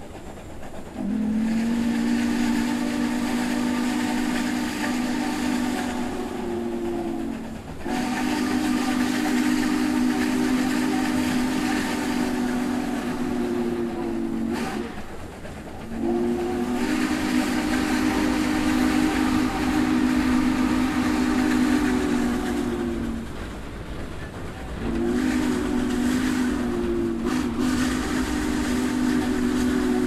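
Steam locomotive's chime whistle sounding a chord of several notes in long blasts of about six to seven seconds each, then a short blast and another long one near the end, each dropping slightly in pitch as it is shut off. A low train rumble builds beneath from about halfway.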